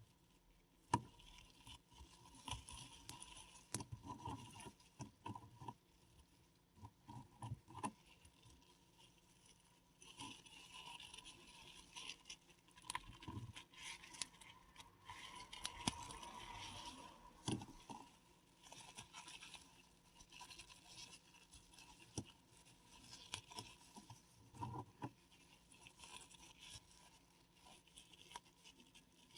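Paradichlorobenzene mothballs crushed between the fingers: quiet, irregular crackling, crunching and scraping as the tablets crumble to powder. A sharp crack comes about a second in, and a denser run of grinding and rustling comes in the middle.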